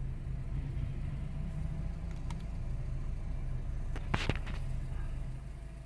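Car engine running steadily at low speed, with one short sharp click about four seconds in.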